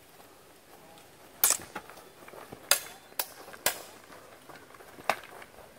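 Steel training longswords clashing in sparring: about five sharp metallic clacks, some ringing briefly.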